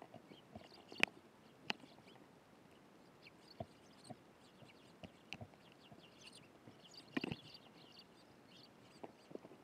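Eurasian tree sparrows chirping, a steady run of short, high cheeps from several birds, with sharp taps and knocks now and then, a cluster of them about seven seconds in.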